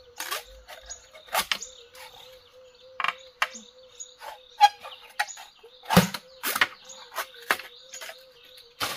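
Hooked machete chopping and trimming an upright green bamboo pole: sharp knocks at an irregular pace, about seven strong strikes, loudest around the middle, with lighter cuts between.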